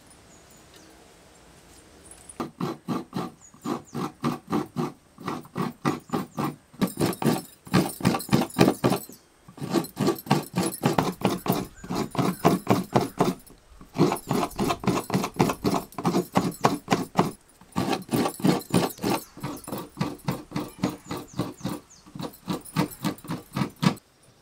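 A fresh coconut half being scraped on a coconut grater: quick rasping strokes, about four a second, in runs broken by short pauses, stopping abruptly near the end.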